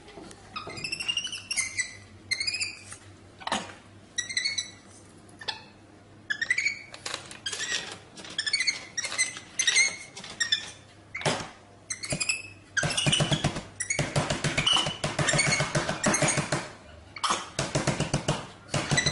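Capuchin monkey giving repeated short, high, wavering squeaks and chirps, then a louder stretch of rapid pulsing sound over roughly the last six seconds.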